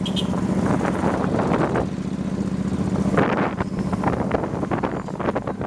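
Wind buffeting the microphone of a moving motorbike, over the bike's engine running at a steady hum.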